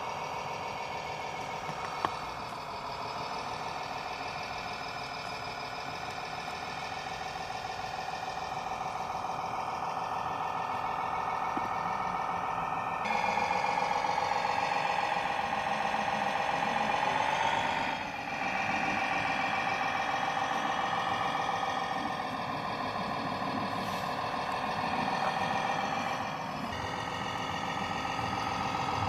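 Radio-controlled model trucks working: a steady whine of motors and gears, with a sound module's engine drone, rising and falling in pitch a few times and getting louder about halfway through. A single sharp click about two seconds in.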